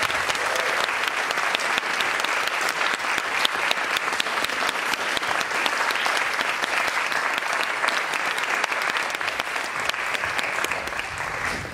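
Audience applauding steadily, thinning out a little near the end.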